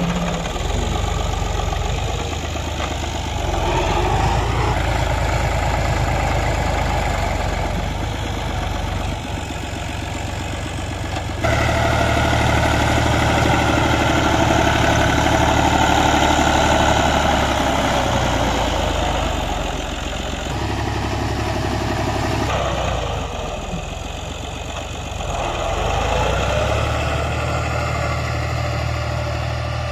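Fiat 480 tractor's three-cylinder diesel engine running steadily under load as it pushes soil with a front blade. The engine sound jumps abruptly louder about eleven seconds in, then dips and shifts again near the end.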